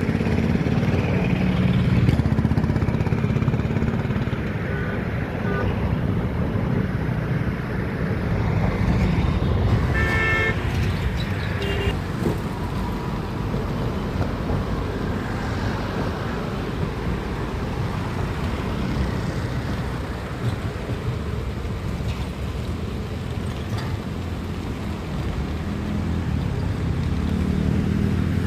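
Road traffic with vehicle engines running, and a horn sounding briefly about ten seconds in.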